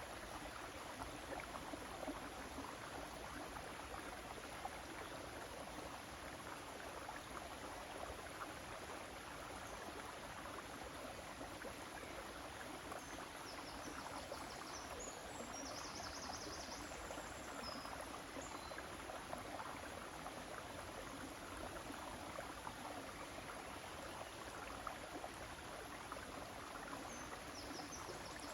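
River water flowing steadily, a continuous rushing babble. Faint high chirps come through about halfway through and again near the end.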